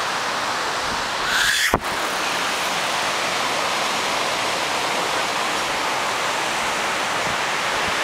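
Steady wash of ocean surf breaking on a sandy beach. About two seconds in, a brief rising swish ends in a sharp click.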